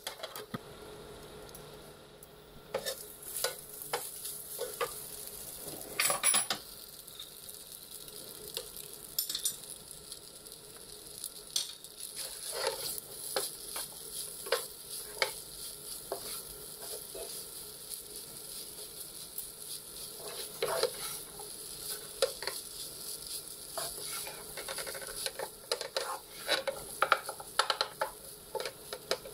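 Fried rice with diced pumpkin sizzling in a nonstick pan while a wooden spatula stirs and scrapes it, with frequent short knocks of the spatula against the pan. There is a louder clatter about six seconds in.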